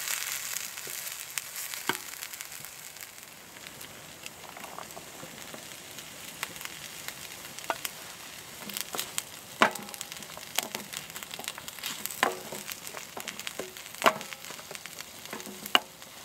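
Chopped tomato, pepper and onion sizzling in a frying pan on a wood-burning stove. The sizzle is strongest in the first couple of seconds and then eases. In the second half a wooden spoon stirs the mixture, with a run of sharp clicks and knocks against the pan.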